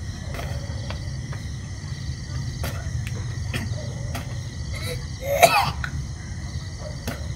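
Steady chirring of night insects over a low, steady rumble, broken about five and a half seconds in by one short, loud cough-like sound.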